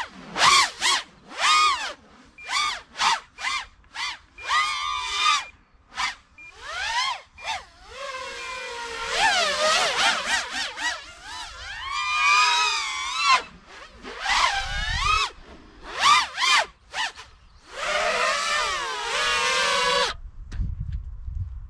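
FPV racing quadcopter with four XNova 2204 2300kv brushless motors spinning three-blade 5.1-inch props: a whine that rises and falls sharply with many quick throttle punches, then longer stretches of sustained flight, stopping abruptly near the end. A low rumble follows the stop.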